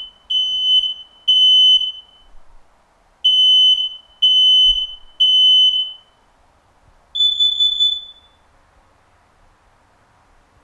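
Smoke alarm sounding its temporal-three pattern: three loud beeps, a pause, then three more beeps, which signal an activated smoke alarm. About seven seconds in, a carbon monoxide alarm gives a short run of four faster, slightly higher beeps.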